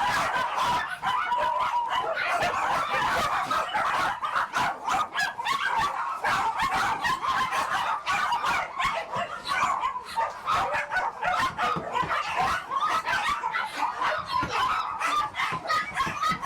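A large crowd of caged dogs barking and yelping all at once in a continuous, overlapping din, the sound of hundreds of dogs kept together on a dog meat farm.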